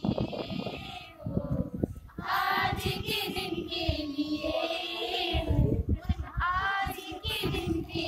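Young voices singing a Hindi welcome song (swagat geet), a held melody with a short break about two seconds in.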